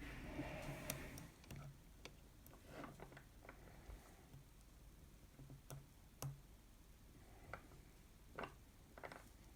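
Faint, irregular clicks and light scrapes of a disc-detainer pick turning the rotating discs inside an Abloy Protec padlock, with a soft rustle of handling in the first second.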